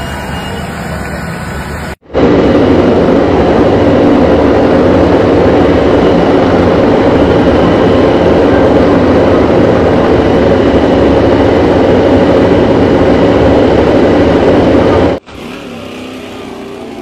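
MotoGP racing motorcycle engine noise, very loud and held steady, with no clear rising or falling revs. It cuts in sharply about two seconds in and cuts off sharply near the end.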